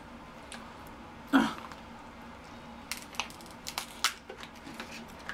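King crab leg shells being snapped and pulled apart by hand, with several sharp cracks and clicks a few seconds in. One short, louder noise comes about a second and a half in.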